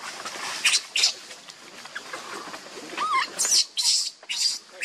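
Newborn macaque squealing in short, shrill cries, about five of them, as its mother handles it by the limbs.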